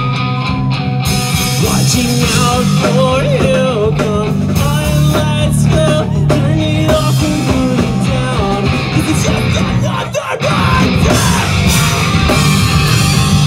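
Live rock band playing loud, with a singer over electric guitar and drums, heard from the crowd. The sound drops out briefly about ten seconds in, then the band comes back in fuller.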